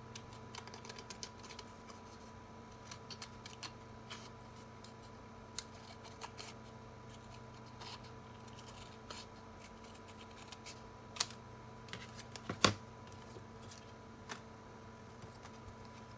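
Scattered light clicks and ticks of small handwork at a work surface, with one sharper click a little past the middle. A steady faint electrical hum runs underneath.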